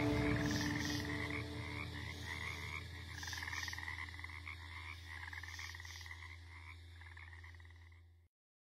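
A chorus of frogs croaking in short rattling trills, one or two a second, over a low steady drone: swamp ambience at the close of a dungeon synth track. It all fades down and stops about eight seconds in.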